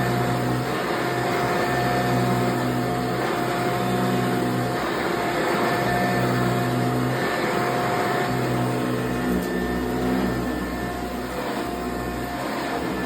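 1987 Eureka self-propelled upright vacuum cleaner running steadily with a constant whine. A lower hum comes and goes every second or two.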